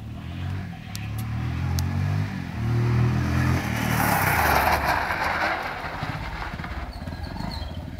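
Bajaj Pulsar 150 motorcycle's single-cylinder four-stroke engine running as the bike approaches, growing louder, passing close about four seconds in with a rush of noise, then fading as it rides away.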